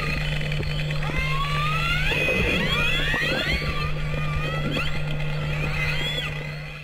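Killer whales calling underwater: many overlapping rising and falling whistles and squeals, over a steady low hum. The sound fades out near the end.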